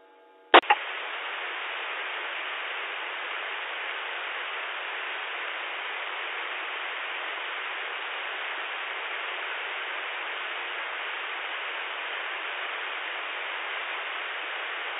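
Steady hiss of radio static over the amateur-radio repeater, opening with a short click about half a second in. A station is keyed up but no voice comes through, which the net controller takes for the station's modulation not getting through.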